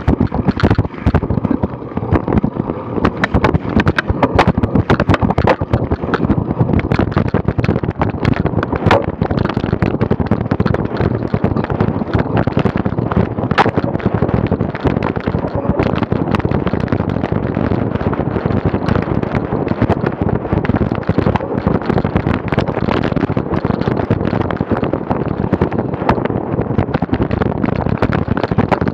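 Wind buffeting a bike-mounted action camera's microphone as a cyclocross bike is ridden over bumpy grass. Constant rattling and sharp knocks come from the bike and camera mount jolting over the ground.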